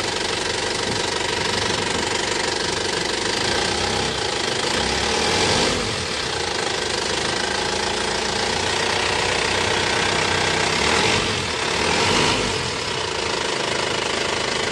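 Isuzu Elf truck's diesel engine idling steadily, rising slightly in level twice.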